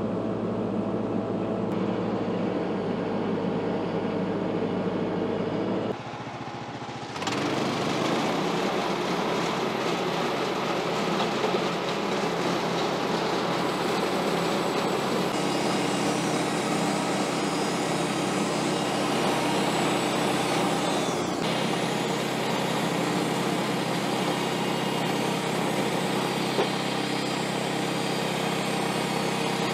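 Portable bandsaw sawmill's gas engine running steadily, dipping briefly about six seconds in and then running up louder to cutting speed. From about halfway through, the band blade cuts through a white oak log for the opening face cut, and the sound turns brighter.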